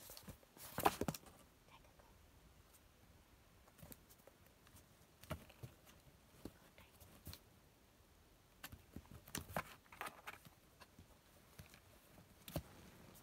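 A kitten's claws and paws scratching and scrabbling on a corrugated cardboard box as it climbs about inside it, in short scattered bursts, the loudest about a second in and a cluster around nine to ten seconds.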